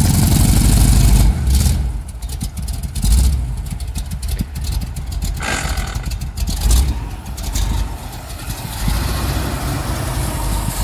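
Engine of a 1975 Chevrolet C10 pickup running as the truck, stripped to cab and chassis, is driven slowly. It is a low, uneven rumble, loudest in the first second or so, then rising and easing several times.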